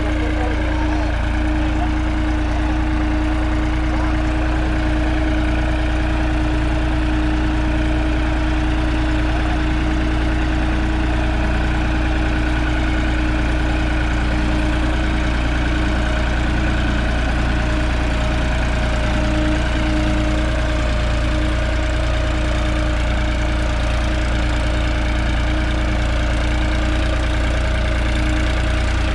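New Holland 3630 TX Plus tractor's three-cylinder diesel engine running steadily under load at about 1700 rpm, pulling a disc harrow through ploughed soil. The pitch holds even throughout.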